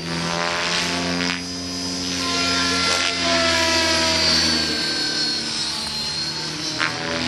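Align T-Rex 600E electric RC helicopter flying 3D aerobatics overhead: its motor and rotor blades make a steady, layered tone that shifts in pitch and loudness a few times as it manoeuvres.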